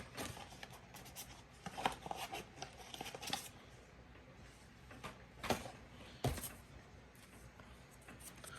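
Hands rummaging through a cardboard product box: rustling and scraping with scattered clicks, and two sharper knocks about five and a half and six and a quarter seconds in.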